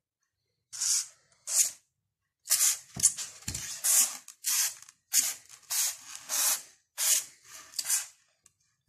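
Short hissing bursts of paint spray from a homemade spray bottle made from a 240 ml 7up plastic bottle, about a dozen quick squirts in an uneven rhythm.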